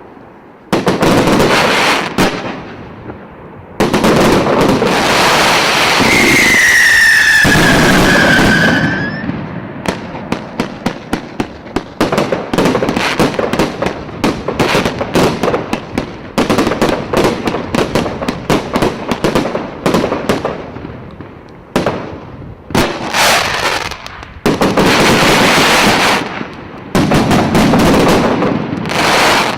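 Multi-shot consumer fireworks cake firing: loud launches and bursts, with a whistle falling slightly in pitch about six seconds in. This is followed by a long run of rapid crackling cracks, then heavy bursts again near the end.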